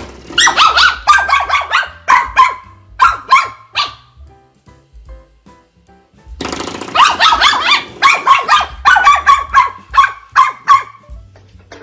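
A dog barking in two rapid bouts of sharp, repeated barks. The first starts at once, and the second starts a little after the middle.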